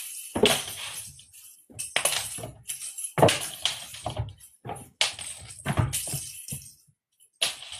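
A cat toy rattling and jingling as cats bat at it, in short irregular bursts of clatter about six or seven times.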